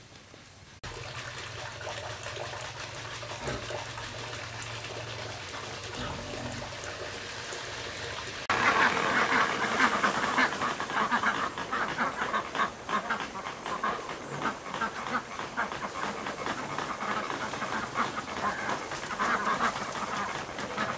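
A low, steady background for the first few seconds, then from about eight seconds in a louder din of many short, overlapping poultry calls.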